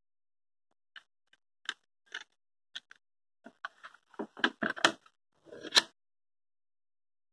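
CD and plastic jewel case being handled: a run of sharp clicks and knocks, sparse at first, then coming thicker and louder about four to six seconds in.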